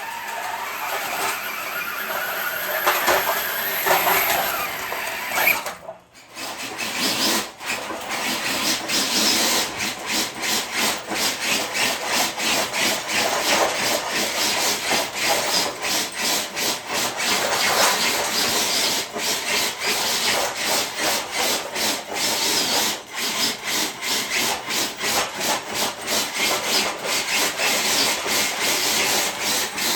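RC truck pulling a dead-weight sled: a continuous scraping and grinding of the sled and tyres dragging over the ground, dropping out briefly about six seconds in, then going on in a choppy run with many short breaks.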